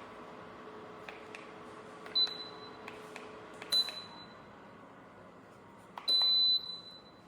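Dreo electric space heater's control panel beeping as its buttons are pressed: two short beeps and a longer beep about six seconds in, with small button clicks. Under them a steady hum with a tone fades away midway.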